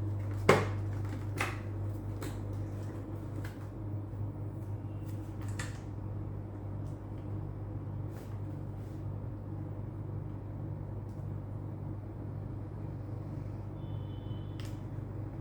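Handling noise from working inside a motorcycle helmet while fitting the intercom microphone: a sharp click about half a second in, then a few scattered knocks and light ticks, over a steady low hum.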